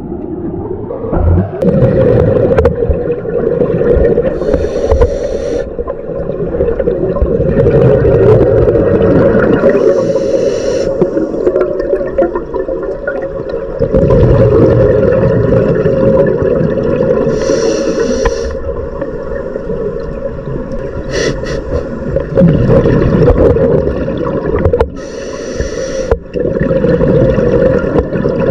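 Scuba regulator breathing underwater: a hissing inhalation through the demand valve about every seven seconds, four times, with the bubbling and gurgling of exhaled air between breaths.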